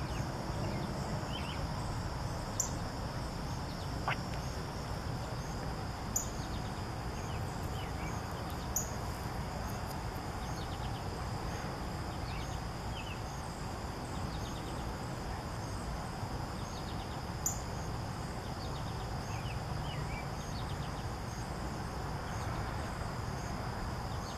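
Outdoor ambience: a steady high insect drone with a faint, evenly repeating chirp, scattered short bird calls, and a low rumble underneath. A few sharp clicks stand out.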